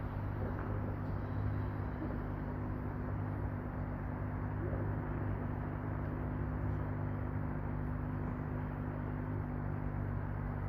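Steady low mechanical hum over an even background rush, with no bangs or pops.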